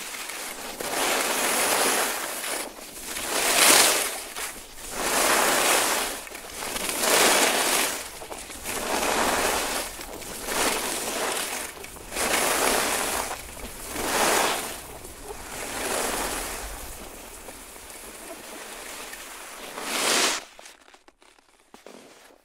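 Skis carving downhill over snow: a scraping hiss that swells with each turn, about ten turns roughly every one and a half to two seconds, the last one loud before it fades out.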